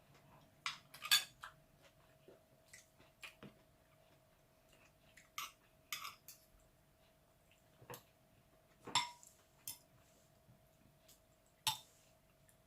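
Cutlery and dishes clinking: scattered sharp taps and clinks of metal on a bowl or plate, loudest about a second in, around nine seconds and near the end, over a faint steady hum.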